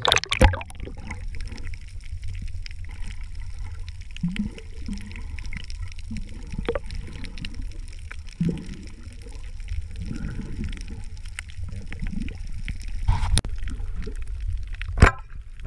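Underwater sound picked up by a camera in its housing: a steady low water rumble with scattered clicks and bubbling, broken by a sharp knock just after the start and two more near the end.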